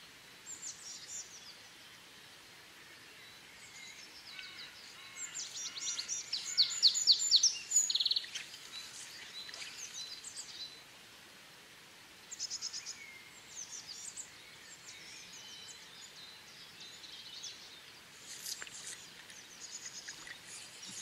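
Small songbirds singing: repeated high chirps and fast trills of rapid notes, loudest about six to eight seconds in, over a faint steady background hiss.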